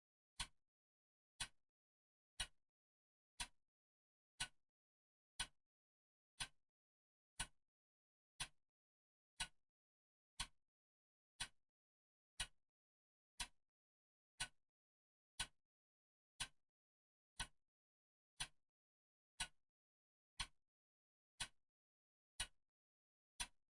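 Clock ticking steadily, one sharp tick each second, with silence between ticks.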